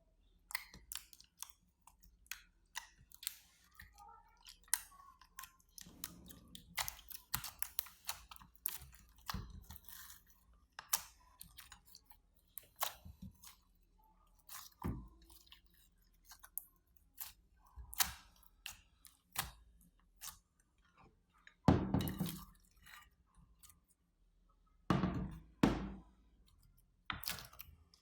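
Slime being squeezed and mixed inside a plastic bag: a steady run of irregular sticky clicks and pops, with a few longer, louder squelching spells.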